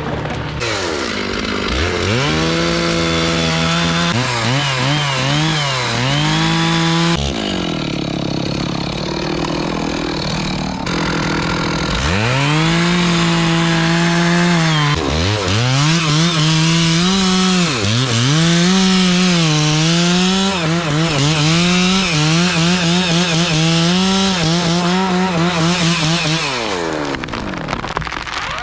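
Two-stroke chainsaw cutting through a tree top at high revs, its pitch dipping over and over as the chain bogs in the wood. It drops back for a few seconds midway, revs up and cuts again, and winds down near the end.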